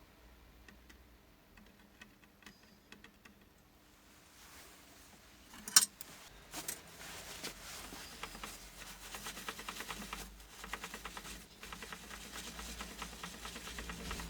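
Light clicks and taps of small tools working on a circuit board, with one sharp click about six seconds in, then a rapid run of small ticks and scraping.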